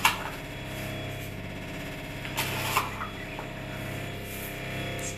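Sugar tipped from a plastic scoop into a mixing bowl: a short knock at the start and a brief sandy pour about two and a half seconds in, over a steady mechanical hum.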